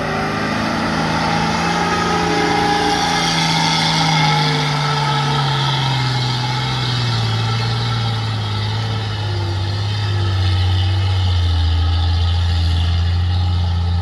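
Loaded diesel dump truck driving past and pulling away on a dirt road, its engine running steadily with the pitch falling slowly throughout.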